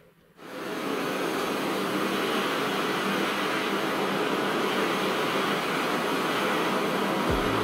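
Butane flame-gun torch on a gas canister burning with a steady hiss, its blue flame heating a metal branding stamp. The hiss comes in abruptly just after the start.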